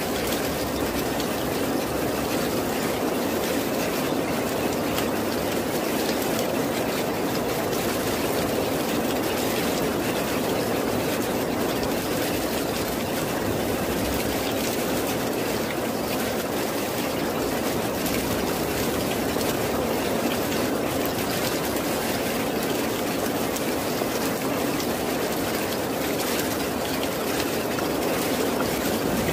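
Steady rain falling: a dense, even hiss of many drops that neither swells nor fades.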